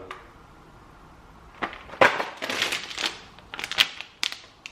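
Plastic snack packaging crinkling and crackling as packets are handled, in a run of short bursts and clicks that starts about a second and a half in, loudest around two seconds in.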